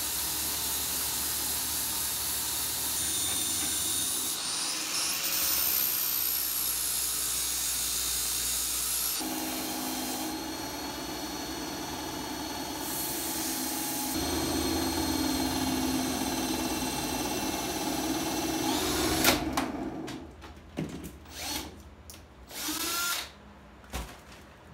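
A cordless drill spins a steel snowmobile drive-sprocket shaft in pillow-block bearings as a makeshift lathe while a grinder grinds the shaft down to size, a steady power-tool noise that shifts in character a few times. About 19 seconds in, the spinning winds down with a falling whine, followed by a few short knocks and clatter.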